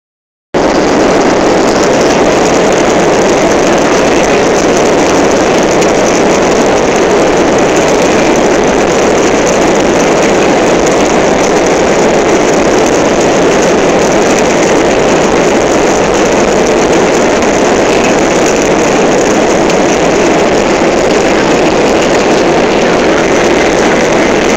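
Boeing 737's jet engines heard from inside the passenger cabin as the plane rolls on the ground after landing: a loud, steady, even noise with no change in level.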